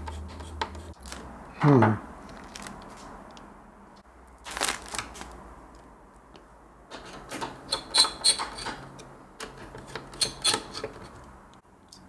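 Handling noise while the AMD stock cooler is screwed down onto the motherboard: scattered clicks and taps of the screwdriver and cooler, with crinkling of the anti-static bag underneath. There is a short burst about four and a half seconds in, and a busier run of clicks from about seven seconds on.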